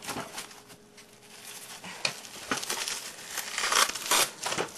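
Packaging rustling and crinkling in irregular bursts as a model railway coach is worked out of its polystyrene packing tray, loudest a little before the end.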